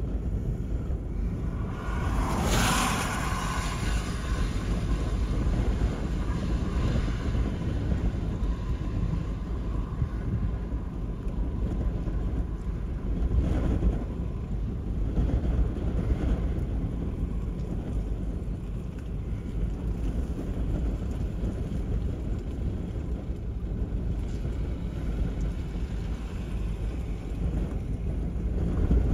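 Wind buffeting the phone's microphone, a steady low rumble throughout. A car passes close by on the wet road about two seconds in, its tyres hissing, with fainter swells of noise later on.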